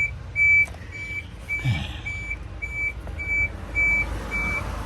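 A vehicle warning beeper sounding a steady high beep about twice a second, like a truck's reversing alarm, over a low steady rumble. A short low sound drops in pitch a little under two seconds in.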